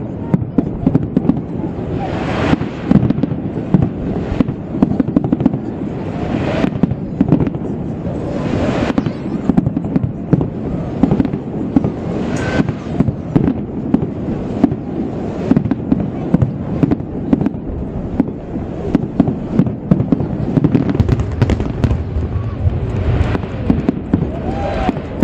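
Fireworks display: a continuous barrage of rapid crackling, with louder bangs every few seconds.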